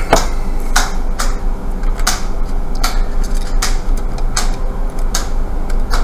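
A series of sharp clicks, about one every three-quarters of a second, over a steady low electrical hum.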